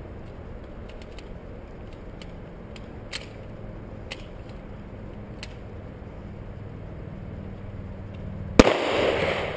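A single loud handgun shot near the end, followed by about a second of loud noise. Before it, only a low steady background with a few faint pops.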